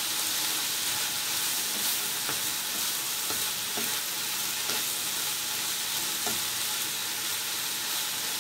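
Diced peppers, onions and cooked meats sizzling steadily in an oiled frying pan while being stirred with a wooden spoon, with light taps and scrapes of the spoon on the pan now and then.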